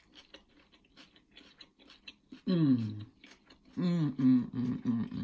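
A person chewing a mouthful of lightly cooked vegetables and beans, with small crunches and clicks, then humming "mmm" with the mouth full: one long falling hum about halfway, then a string of shorter hums near the end, the sound of someone enjoying the food.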